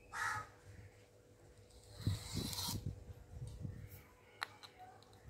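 Wooden comb drawn through long, oiled hair: a short brushing stroke right at the start and a louder, longer one about two seconds in, with a few light clicks near the end.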